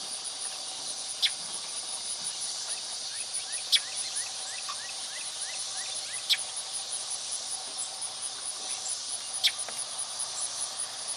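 Field insects chirring steadily at a high pitch, with a sharp chip every two to three seconds and a short run of quick rising chirps about three seconds in.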